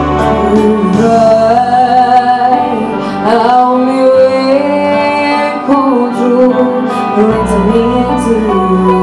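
A woman singing a song with instrumental accompaniment, holding and sliding between long notes.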